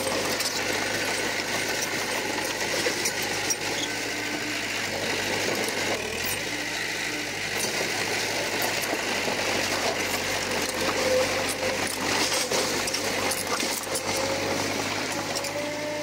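Bulldozer's diesel engine running steadily, with a dense patter of small metallic clicks and rattles over the engine drone.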